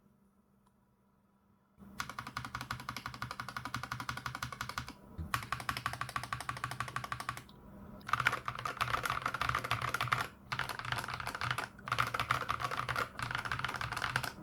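Fast typing on an FL-Esports MK870 TKL mechanical keyboard fitted with Akko Ocean Blue tactile switches, some lubed and some stock. A dense run of key clacks starts about two seconds in, broken by a few brief pauses, and is louder and brighter from about eight seconds on.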